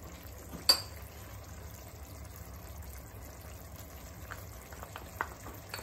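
Wet mashed onions bubbling gently in a frying pan, a soft steady simmer. A single sharp tap comes just under a second in, with a few light ticks later on.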